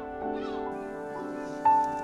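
Gentle instrumental background music: sustained melodic notes that change about every half second, with the brightest note near the end.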